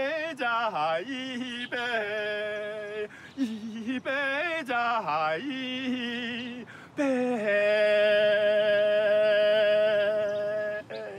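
A man singing a slow song in a strong vibrato, in phrases that rise and fall, then holding one long steady note through the second half that breaks off just before the end.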